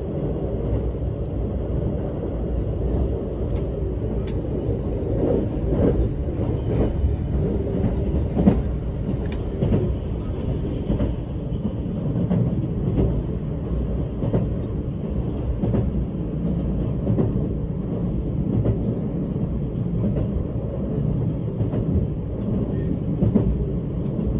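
Rail joint clatter heard inside a JR 651 series Green car: the wheels click over the rail joints at irregular intervals over a steady running rumble.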